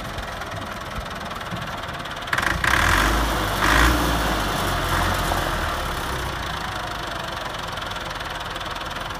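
Massey Ferguson 385 tractor's diesel engine, freshly overhauled, idling and then revved up in two surges a couple of seconds in before settling back to a steady idle.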